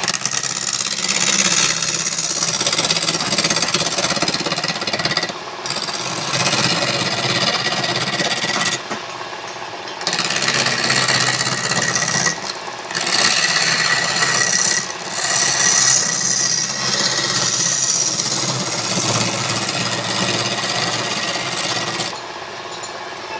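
Power tool working wood: a loud, steady rasping noise over a motor hum, cutting out briefly four times as the tool comes off the work.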